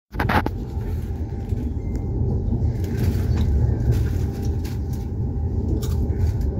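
Passenger train running, heard from inside the carriage: a steady low rumble with a few light clicks over it.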